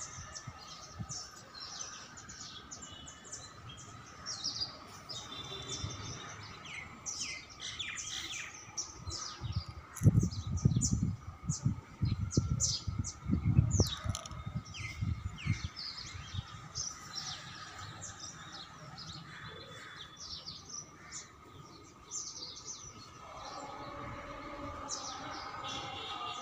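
Small birds chirping and tweeting, many short high calls throughout. A stretch of loud low rumbling comes in about ten seconds in and lasts some six seconds.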